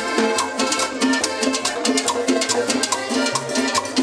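A live band playing salsa-style Latin dance music, with a steady percussion beat.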